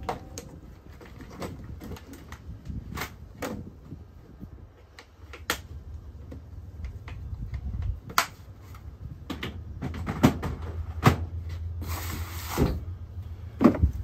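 Scattered clicks and knocks of hard plastic organizer cases and metal drawer units being handled in the back of a work van, with a short sliding scrape near the end.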